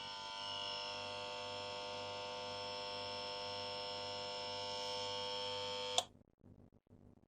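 Refrigerator compressor motor giving a steady electrical hum with a high whine, then cutting off suddenly with a click about six seconds in. The refrigerator is faulty, and the owner blames poor-quality motor windings.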